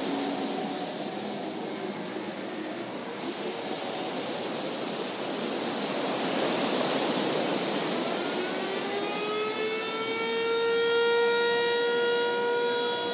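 A steady rushing noise, then about eight and a half seconds in a siren winds up in pitch and holds one steady note.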